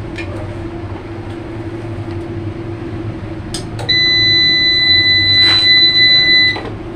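PowMr solar inverter's buzzer sounding one long, steady, high beep of about two and a half seconds, starting about four seconds in and cutting off suddenly, over a steady low hum.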